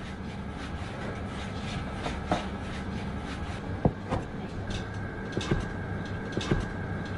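Cleaver chopping strands of wheat dough into small cubes for cat's-ear pasta, the blade knocking on a wooden board at an uneven pace a few times a second, the sharpest knock about four seconds in, over a steady low hum.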